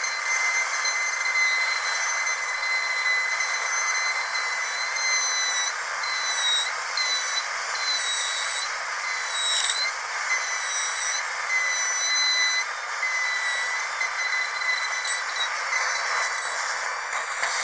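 Dental drill whining at a steady high pitch over a hiss of air, its pitch dipping briefly a few times. A louder burst of hiss comes near the end.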